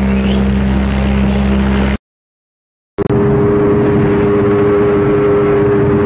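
Two ship's horn blasts from ocean liners: a deep, steady horn that cuts off abruptly about two seconds in, then after a second of silence a higher-pitched horn sounding steadily for about three and a half seconds.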